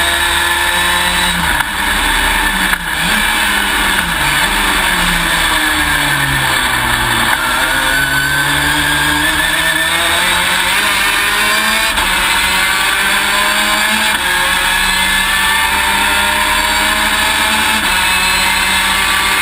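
V6 race car engine heard from inside the cockpit at speed. The revs swing up and down quickly a few times in the first four seconds, drop away until about seven seconds in, then climb in one long, slow pull for the rest.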